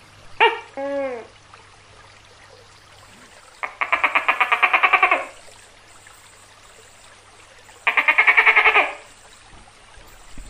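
Tokay gecko calling: a two-note "to-kek" call near the start, then two rapid rattling trills, the first about a second and a half long, the second about a second.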